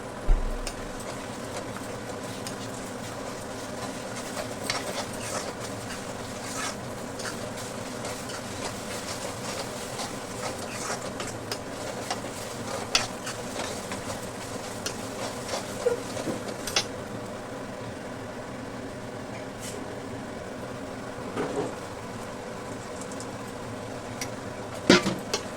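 Bitter gourd curry sizzling steadily in a frying pan, with scattered clicks and scrapes of a spoon stirring it against the pan.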